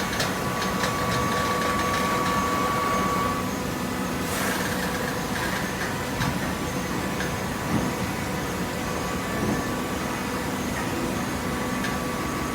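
Hydraulic cardboard baler running with a steady machine hum. A higher tone drops out about three seconds in, a brief rush of noise follows about a second later, and a few light knocks come after that.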